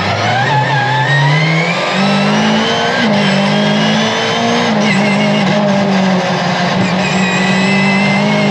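Mercedes 190E 2.3-16v's four-cylinder 16-valve engine under hard acceleration, heard from inside the car: the revs climb steeply over the first two seconds, then hold high and nearly steady for the rest of the stretch.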